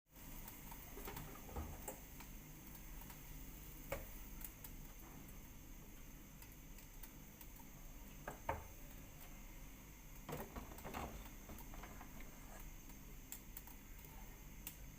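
Faint kitchen sounds: a few light knocks and clinks of a utensil against cookware over a steady low hiss.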